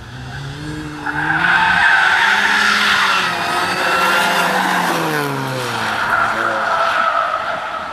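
Mini Cooper cornering hard with its tyres squealing loudly, the engine note rising and falling underneath. The squeal starts about a second in and eases off near the end.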